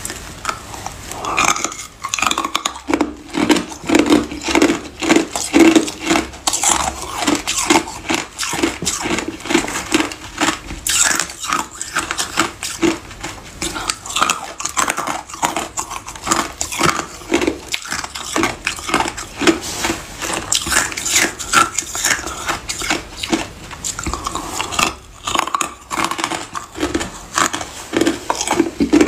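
Frosted chunks of ice being bitten and chewed: a fast, dense run of sharp, brittle crunches.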